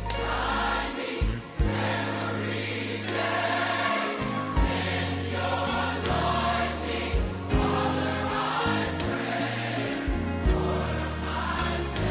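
Gospel choir music: voices singing together over held bass notes, with a drum hit about every second and a half.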